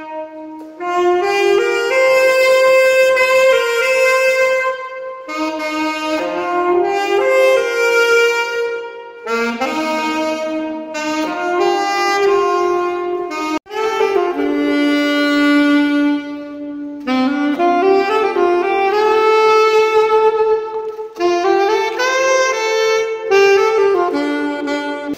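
Solo saxophone playing a melody of held notes in phrases a few seconds long, with short breaks between them.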